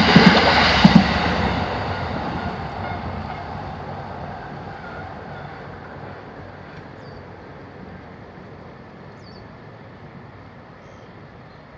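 A train passing and then moving away, loud at first and fading steadily over about ten seconds. It has a couple of heavy wheel clacks in the first second.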